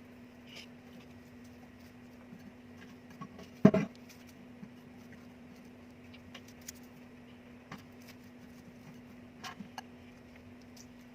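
Handling noises while preparing food: one loud sharp knock, quickly followed by a second, about three and a half seconds in, and a few light clicks and taps later on, over a steady low hum.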